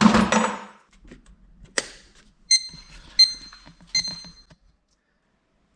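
Brass and copper scrap being handled: a brief clatter, a sharp click, then three ringing metallic clinks about a second apart.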